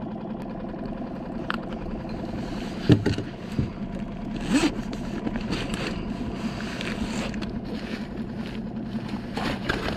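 Small boat motor running steadily on the skiff, with the rasp of a zipper on an insulated fish bag and scrapes and knocks of handling as a cabrilla is unhooked and stowed.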